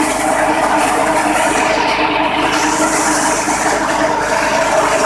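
Grass chopper driven by a 6.5 hp petrol engine, running steadily at speed, its six-blade cutter chopping fodder grass fed into the hopper.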